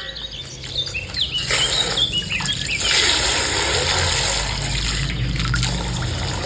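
Coloured water gushing and splashing out of a punctured plastic ice-pack bag, with a few squeaks of the plastic first.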